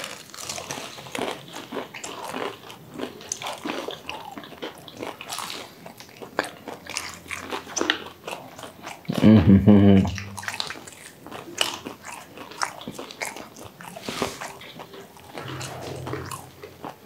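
Close-miked eating: crunching bites into crispy fried broast chicken and wet chewing, with many small crackles. A short voiced sound, the loudest moment, comes about nine seconds in.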